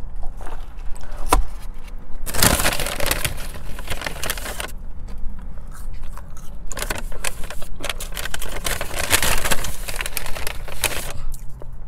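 Paper fast-food bag rustling and crinkling in two long stretches, as it is handled and fries are taken out, with a few small clicks between.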